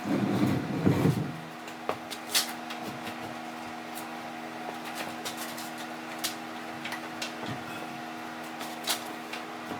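Scattered clicks and knocks of hand work on a crawler's undercarriage, with a louder rough scraping rustle in the first second, over a steady hum.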